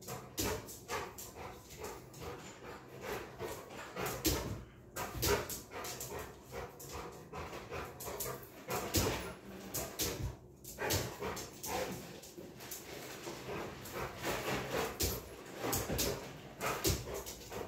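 Large dog whining and giving short barks and yips over and over, begging for a piece of cake held up out of reach.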